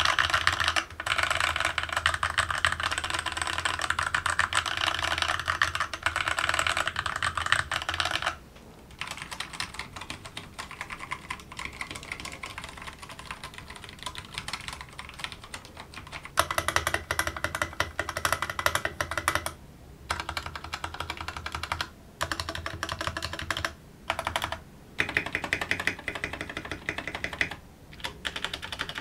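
Typing on mechanical keyboards, an Akko 3087 and a Keychron K6 side by side: runs of dense keystroke clatter. The first eight seconds or so are louder and brighter, then the typing turns quieter, with short pauses between runs.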